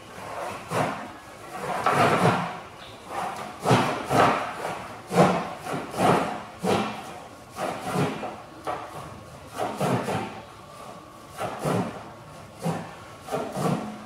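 Irregular knocks and rubbing noises, about one a second, from work on a wooden pallet frame as a motorcycle is tied down onto it with cord.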